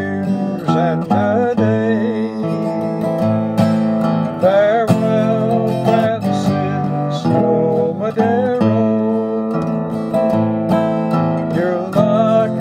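Acoustic guitar music: an instrumental stretch of a folk ballad, with strummed chords under a moving melody line.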